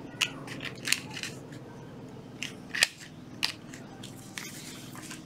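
Hands handling a Ryobi 12V cordless drill and its red plastic fittings: about half a dozen sharp plastic clicks scattered among light handling noise.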